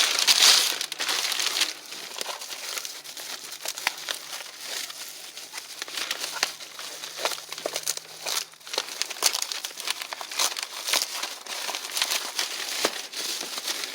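Packaging being handled and unwrapped, a busy crinkling with scattered crackles, loudest for the first couple of seconds.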